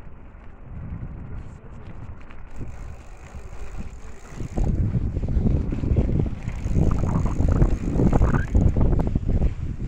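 Wind buffeting the microphone as a low, gusty rumble that gets much louder about halfway through.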